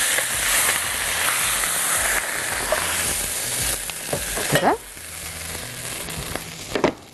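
Hot fat sizzling in a pan as a freshly seared turkey breast roast is handled with tongs and set onto vegetables in a granite-coated pan. The sizzle is loud for about four and a half seconds, then drops to a quieter hiss.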